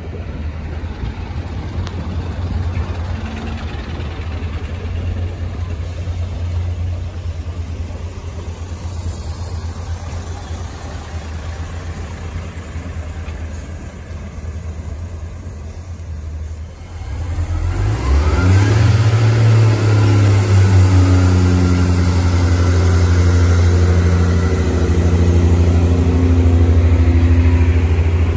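Diesel engine of a Class 141 Pacer railbus idling with a steady low hum. About 17 s in it revs up much louder, with a rising whine, as the unit powers away.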